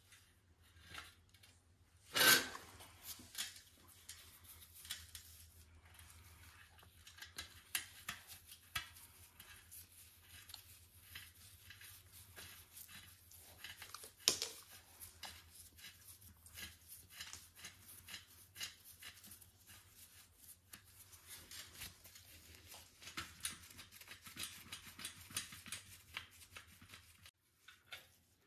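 Metal spokes and spoke nipples clicking and rattling against each other and the rim as new spokes are fitted into a dirt bike's front wheel, with a sharper metal knock about two seconds in and another about halfway through.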